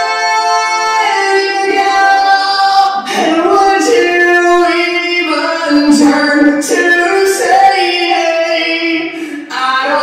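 A woman singing unaccompanied, a slow melody in long held notes, with the echo of a large stone cathedral.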